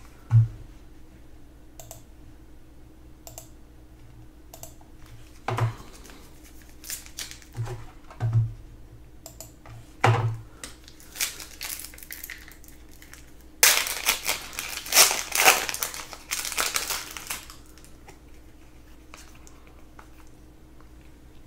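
Trading cards being handled on a table, with scattered light clicks and a few soft thumps, then about four seconds of loud crinkling just past the middle, as a foil card-pack wrapper is torn open.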